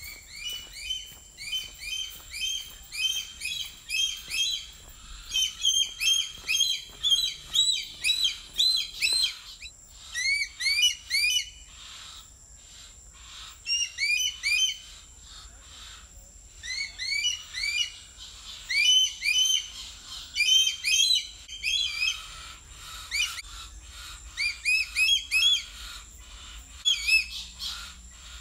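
Birds chirping: quick runs of short, rising chirps in bursts of a few seconds with brief pauses between, over a faint steady high-pitched tone.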